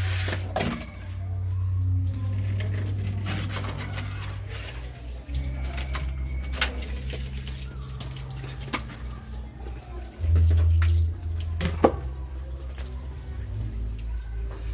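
Water running from a tap into a concrete sink while a plastic container is rinsed under it, with a few sharp knocks. A low rumble comes and goes underneath.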